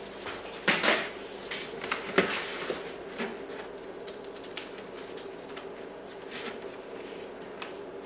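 A shoulder strap being threaded through a 3-bar slide buckle by hand: rustling of the strap and light clicks and knocks of the buckle, the loudest two about a second and two seconds in, then softer ticks.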